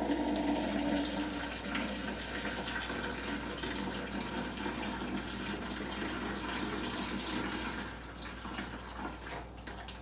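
Red fruit smoothie poured from a bowl through a funnel into a plastic pitcher: a steady rushing, splashing pour that starts at once, eases off, and thins out about eight seconds in.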